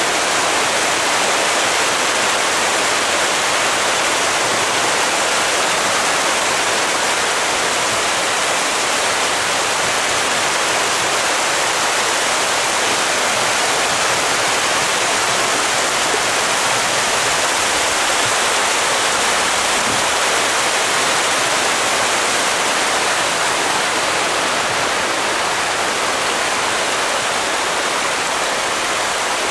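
A dense mass of tra catfish (pangasius) splashing and churning at the pond surface in a feeding frenzy, a loud, steady rushing splash.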